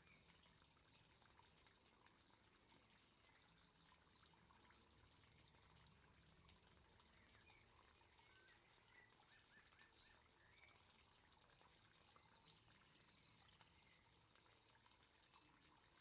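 Near silence: a very faint garden fish pond with water trickling and dripping, plus a short run of small high chirps about nine to eleven seconds in.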